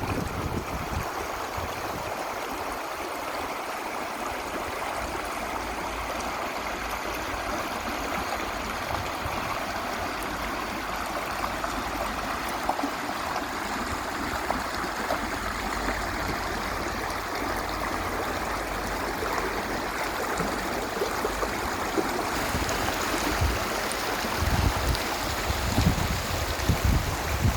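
Creek water running steadily, a constant rushing and gurgling, with a few low rumbles near the end.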